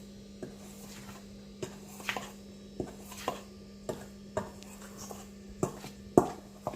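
A mixing utensil knocking and scraping against a bowl in a series of irregular taps as dry gram flour is stirred together with turmeric, salt and cardamom powder. A steady low hum runs underneath.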